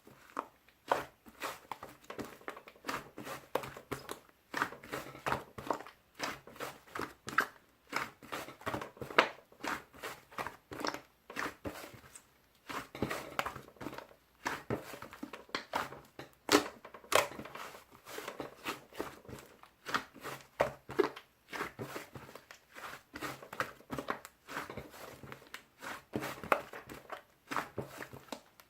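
Fluffy slime being pressed, poked and squeezed by hand, giving a continuous irregular run of small crackling pops and squishes.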